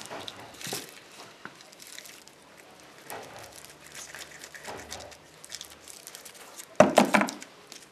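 Light clicks and rustling from gloved hands handling fireworks shell hemispheres, with a louder, short clatter near the end.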